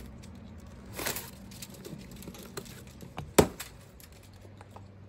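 White plastic packing straps being pulled and worked off a cardboard box: light scraping and crinkling with small clicks, a sharper crack about a second in, and the loudest, a single sharp click, about three and a half seconds in.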